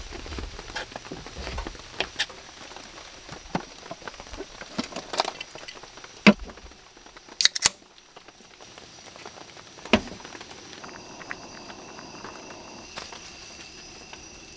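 Knife chopping peeled potatoes on a plastic cutting board, a run of sharp taps. A beer can's tab is cracked open about halfway through, and a faint steady high tone comes in near the end.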